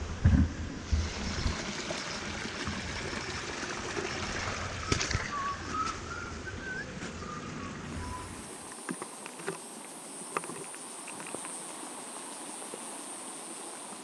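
Forest ambience. For the first half there is wind and handling rumble on the microphone with a few knocks, and a short wavering call around the middle. After a cut there is a steady high insect drone over a faint trickle of water.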